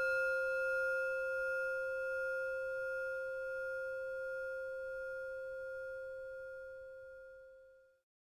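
A singing bowl ringing out after a single strike: one steady low tone with higher overtones, slowly dying away, then cut off abruptly near the end.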